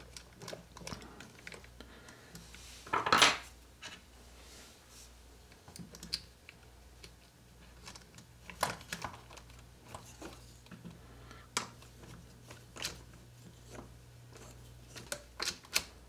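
Scattered clicks and knocks of hard plastic and metal parts being handled as a small RC crawler's plastic wheel is fitted back onto its axle and fastened with a nut driver. A louder clatter comes about three seconds in.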